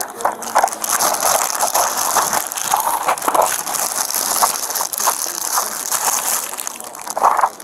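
Thin black plastic bag crinkling and rustling, loud and irregular, as gloved hands dig through it pressed right against the body-worn camera's microphone.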